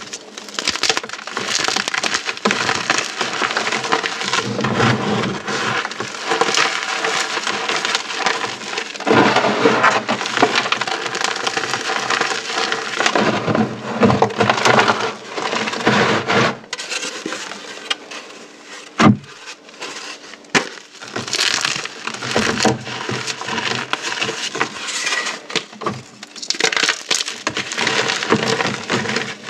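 Dried orbeez hydrogel balls and chalk being crushed: dense, continuous crackling and crunching, with a quieter spell and one sharp snap about nineteen seconds in.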